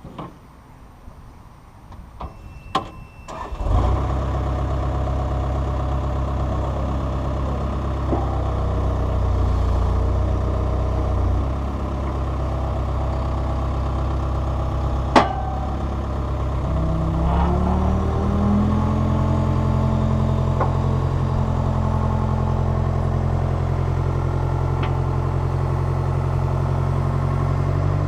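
A skid steer's diesel engine is started about four seconds in after a few light clicks, then runs steadily. Partway through, its pitch rises as it is throttled up, and it holds at the higher speed, with one sharp knock in between.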